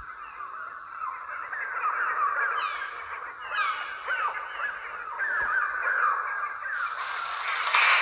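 A flock of birds screeching and cawing, a dense chorus of many short, overlapping falling cries. A harsher, noisier rush joins near the end and grows louder.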